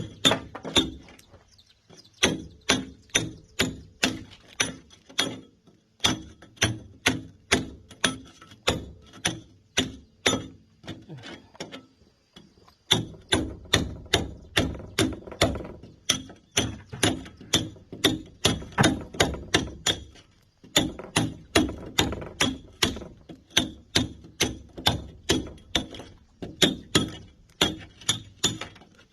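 Hammer striking a steel cold chisel to break up concrete: steady blows about two or three a second, each with a short metallic ring, in runs broken by brief pauses.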